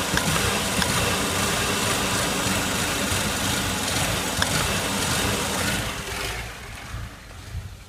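Saab 9-3 SS engine running with the Garrett TD04-14T turbocharger's inlet uncovered: a loud, steady rushing hiss of air drawn into the compressor over a low engine rumble. The hiss fades about six seconds in.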